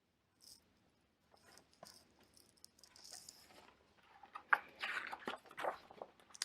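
Faint clicks and paper rustling, louder in the last two seconds: the pages of a picture book being handled and turned.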